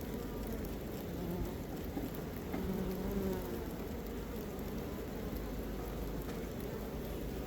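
Honeybees buzzing around an open hive, with single bees humming past close by, briefly about a second in and again for under a second around three seconds in.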